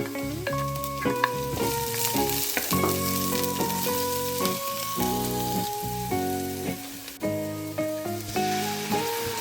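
Food sizzling as it fries in a hot pan, over instrumental background music with a melody of held notes.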